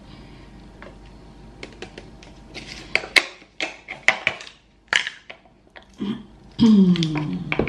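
Plastic tub of fromage blanc being opened and handled: a run of crinkles, crackles and clicks from the lid and seal. Near the end comes a loud sound that slides down in pitch.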